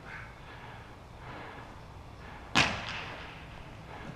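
A single sharp crack about two and a half seconds in, echoing briefly in a large indoor hall, over low background noise.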